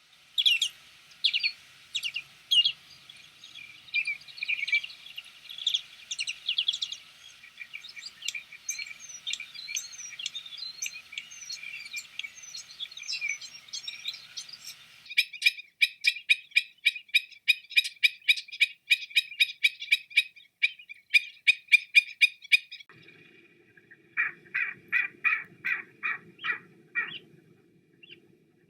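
Wild birds chirping and calling. A busy mix of twittering calls fills the first half, then comes a rapid, even series of sharp chirps, several a second, and near the end slower chirps over a low steady drone.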